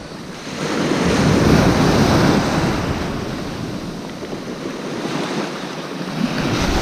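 Small sea waves breaking and washing in at the water's edge, swelling about a second in, easing, then building again near the end, with wind on the microphone.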